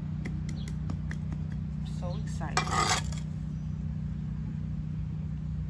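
Hands and a small garden trowel patting and scraping soil around a freshly planted seedling: scattered light clicks and a short, louder scrape about two and a half seconds in. A steady low mechanical hum runs underneath.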